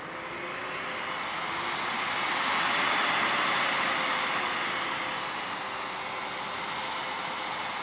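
Dell PowerEdge 850 1U server's cooling fans spinning up at power-on: a rushing whir that swells to a peak about three seconds in, then eases back to a steady running level.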